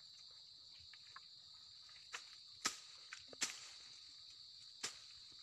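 Steady high-pitched drone of insects, with several sharp snaps or clicks scattered through the second half, the loudest about two and a half seconds in.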